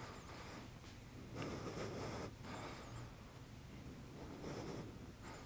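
Faint, irregular rustling from a person moving through a stick exercise: clothing and hands shifting as the stick is circled overhead.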